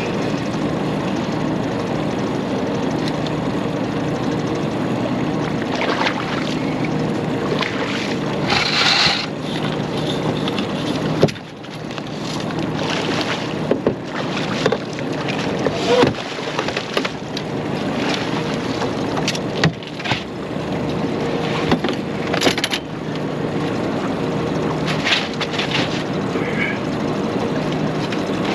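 Steady hum and water noise on a small fishing boat while a striped bass is fought and landed. Several short knocks and brief splashing bursts break through as the fish is brought to the net and lifted aboard.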